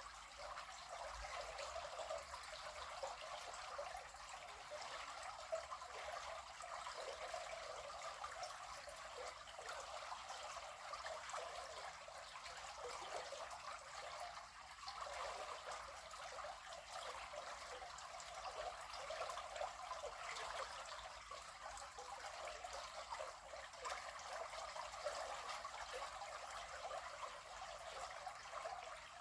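River water flowing over stones, a steady trickling and burbling rush.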